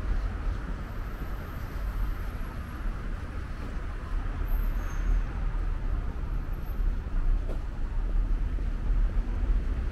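City street traffic: vehicles running along the road, a steady noisy wash with a strong low rumble.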